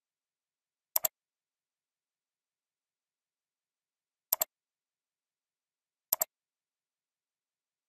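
Computer mouse clicking three times, each click a quick pair of sharp ticks, about a second in, a little past four seconds and a little past six seconds.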